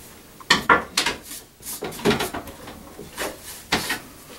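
Bathroom fan parts being handled and fitted together: a string of clicks, knocks and scraping rubs.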